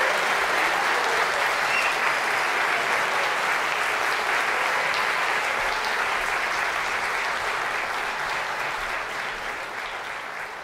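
Audience applauding steadily, then fading away over the last few seconds.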